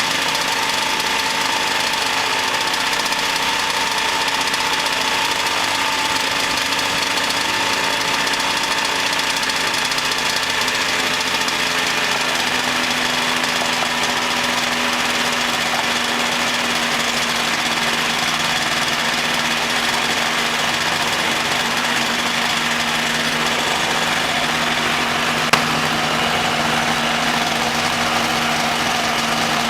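Ultralight aircraft engine running steadily, with its propeller turning; its note changes slightly about halfway through. A single short click sounds near the end.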